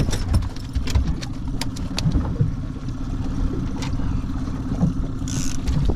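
Boat motor running steadily: a constant hum over a low rumble, with scattered light clicks and knocks.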